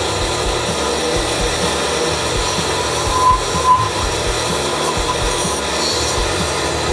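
Drill press spinning a home-made wooden pulley while a hand-held steel chisel scrapes a belt groove into its rim: a steady rasping scrape of wood being turned over the running motor, briefly louder about three seconds in.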